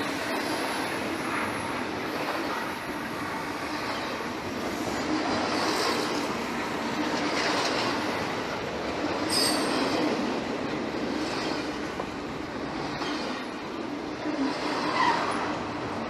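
Norfolk Southern freight train rolling past with the steady rumble and rattle of its cars, and short high wheel squeals about halfway through and again near the end.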